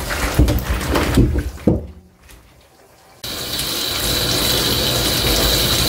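Parboiled blood-curd pieces sliding and splashing out of a frying pan into a stainless-steel sink, with a few knocks. About three seconds in the kitchen tap comes on suddenly and runs steadily over the pieces as they are rinsed by hand.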